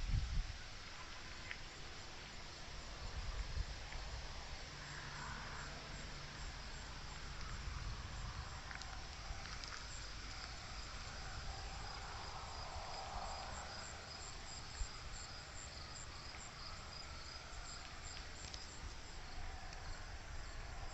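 Crickets chirping in a steady, even rhythm of high pulses, over a faint low rumble.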